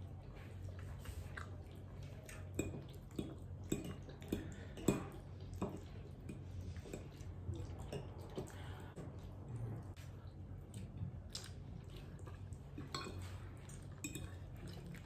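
Metal fork clinking and scraping on a ceramic plate while pasta is forked up and chewed: scattered light clicks and soft wet mouth sounds over a low steady hum.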